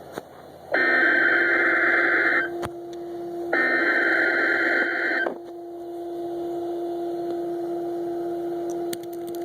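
NOAA Weather Radio receiver sounding the EAS digital header that opens an Emergency Alert System alert: two harsh, buzzy data bursts about a second and a half each. They are followed by radio hiss with a steady low tone.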